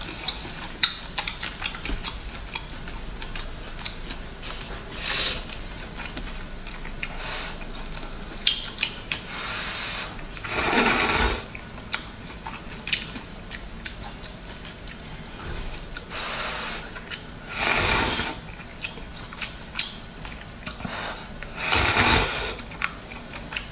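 Close-up eating sounds: chewing with many wet mouth clicks, and three loud slurps of hot and sour noodles (suan la fen), about eleven, eighteen and twenty-two seconds in.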